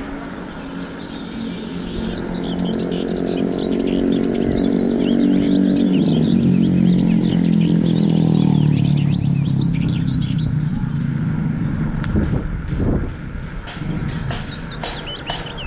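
A motor vehicle passing: its engine note swells and rises in pitch, is loudest about halfway through, then falls away. Birds chirp over it, and near the end a run of sharp, evenly spaced clicks begins, about three a second.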